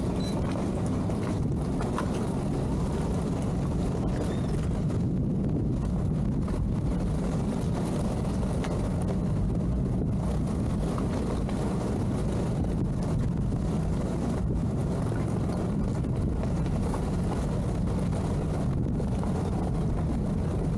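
Twin outboard motors of a towboat running steadily under load while towing a 41 ft yacht, a continuous low engine drone.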